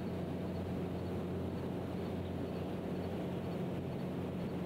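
Steady low machine hum from the industrial site, unchanging throughout, with faint high chirps over it.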